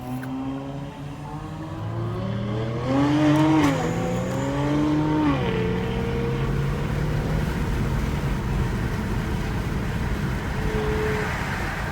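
2019 Kia Stinger GT2's 3.3-litre twin-turbo V6 running hard: its note climbs and drops back sharply twice in the first five seconds, then holds a steadier pitch.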